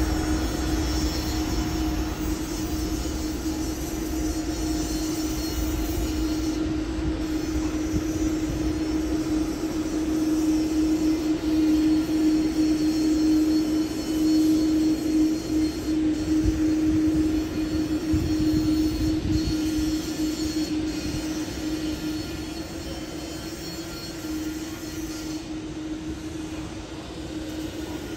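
Boeing 777-300ER's twin GE90-115B jet engines at takeoff thrust during the takeoff roll, heard from beside the runway as a steady drone with a constant hum. It is loudest about halfway through and fades toward the end as the jet pulls away and lifts off.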